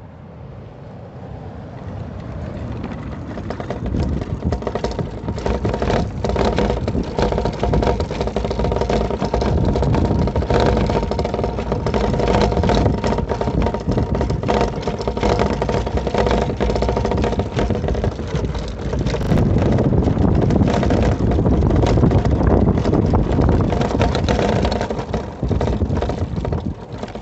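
Voltz EV1 electric scooter riding over cobblestones, with a loud, continuous rattle from its windscreen, which the owner traces to something apparently loose inside the dash panel where the windscreen is mounted. The rattling builds over the first few seconds, eases briefly a little past halfway, then comes back strong.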